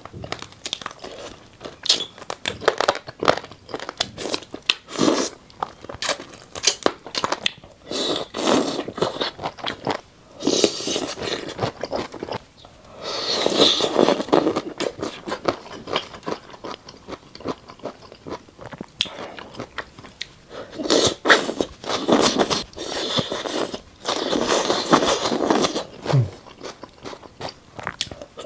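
Close-up eating sounds: crunchy bites and chewing of bobo chicken, skewered food dressed in cold red chili oil, in irregular bursts with pauses between mouthfuls.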